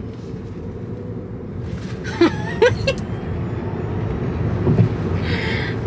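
Tesla electric car accelerating, heard from inside the cabin: road and tyre rumble grows louder as it picks up speed, with a faint rising motor whine. A few brief vocal exclamations come about two seconds in.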